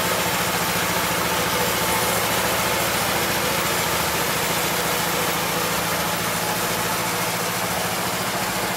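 Horizontal band sawmill running steadily, its 16 HP engine driving the band blade.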